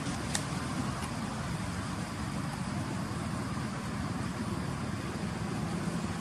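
Steady low rumbling background noise, with one faint sharp tick about half a second in.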